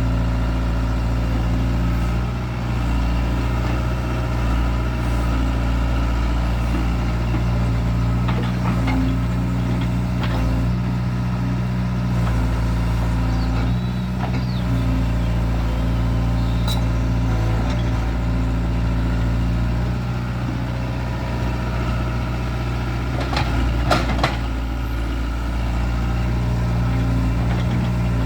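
Hydraulic excavator's diesel engine running steadily as it digs, its low note shifting slightly with the load, with a few sharp knocks about three-quarters of the way through.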